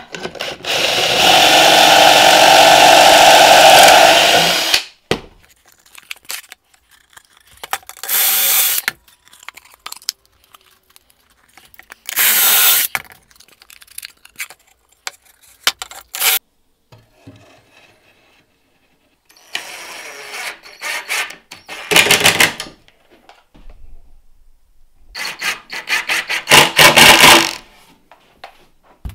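Power drill boring pocket holes through an aluminium pocket-hole jig into a pine board: one long steady run of about four seconds near the start, then several shorter runs with knocks of the jig and board being handled in between.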